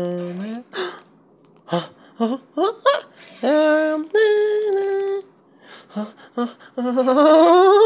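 A high-pitched voice singing wordless notes: several quick rising slides, then two held notes, then a long rising slide near the end.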